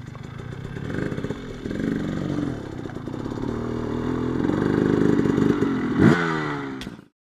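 Dirt bike engine riding over rough ground, its pitch rising and falling with the throttle and climbing sharply about six seconds in, with clattering from the bike over the terrain. The sound cuts off suddenly near the end.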